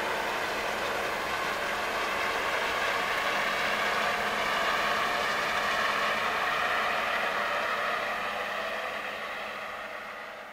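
Boat engine running under way, a steady low hum under the rush of churning water from the wake, fading away near the end.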